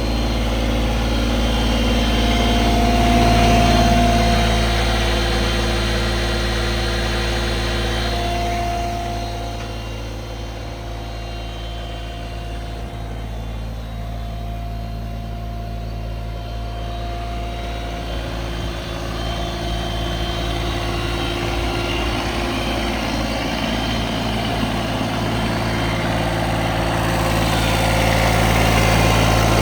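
Bobcat S70 skid steer's small diesel engine running steadily near idle. It grows quieter for a stretch in the middle and louder again near the end, with a thin whine that comes and goes.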